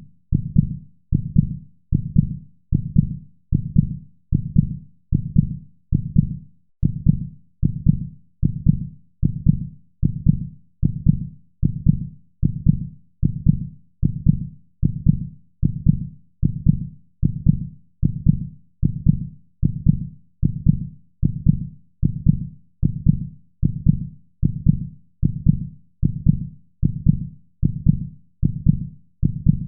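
Heartbeat sound: low, soft thumps in steady double beats (lub-dub), repeating evenly at about one beat a second.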